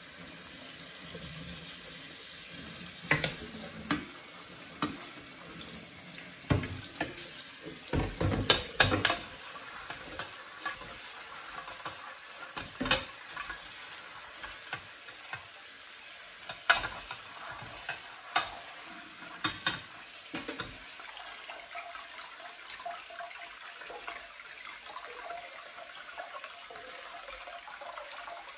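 Tap water running steadily onto pomegranate seeds in a stainless steel colander in the sink while hands stir the seeds to rinse off the pulp. Sharp metallic clinks and knocks of the colander against the sink come in a cluster through the first two-thirds, thickest about eight to nine seconds in.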